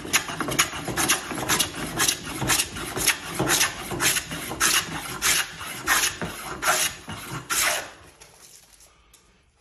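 Metal hand plane taking quick passes along a wooden stool leg, smoothing the taper left by a drawknife, each stroke slicing off a shaving, about two strokes a second. The strokes stop about eight seconds in.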